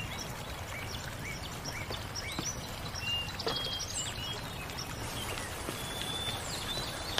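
Birds chirping in short, repeated high calls over a steady outdoor background hiss.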